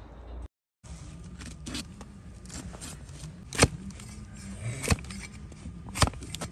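Donkey hoof being pared with a long flat shovel-style hoof knife pressed down against a wooden block, each stroke giving a crisp crack as a slice of horn shears off, about one a second, the loudest in the second half.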